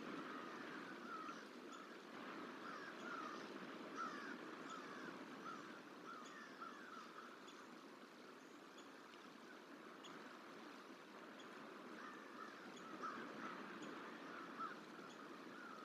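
American crow cawing in rapid runs of short calls, mobbing alarm calls aimed at a juvenile bald eagle. The runs come in the first half and again near the end, with a quieter gap between, over a faint steady outdoor rush.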